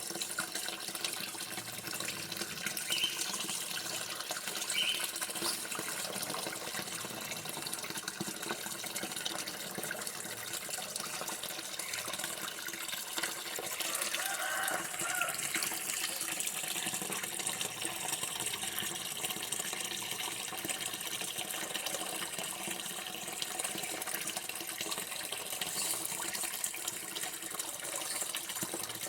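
Running water in a steady, continuous flow.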